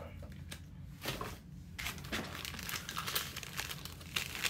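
Foil wrappers of NBA Hoops trading-card packs crinkling as a handful of packs is picked up and shuffled in the hands, a brief rustle about a second in, then steady crinkling from about two seconds in.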